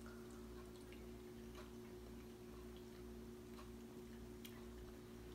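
Very quiet eating sounds: faint, irregular clicks as porridge is eaten with a metal spoon from a ceramic bowl, over a steady low hum.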